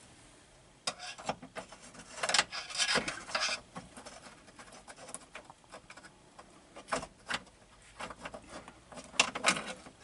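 A thin metal tool scraping and clicking against the sheet metal inside a car's B-pillar cavity while a small captured nut is worked into place, with a cloth rag rubbing. The scrapes and ticks come irregularly, busiest a second or two in and again near the end.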